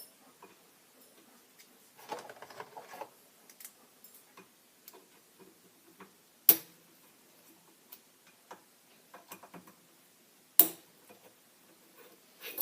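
Small metal clicks and ticks of tools and parts while a rifle's gas block is being loosened and taken off the barrel, with a short rustling scrape about two seconds in. Two sharp metallic knocks stand out, about four seconds apart.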